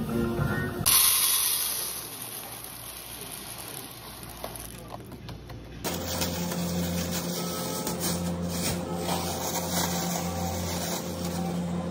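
Crinkling plastic as a bagged sleeve of clear plastic cups is handled and the stack is set on the shelf, over a steady low electrical hum. Before that, a loud hissing noise starts about a second in and fades away over several seconds.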